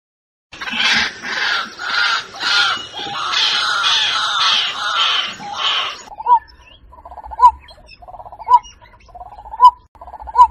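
Bird calls: about five seconds of loud, harsh chattering in quick pulses, then a different call, a short sharp note repeated about once a second over a buzzy trill.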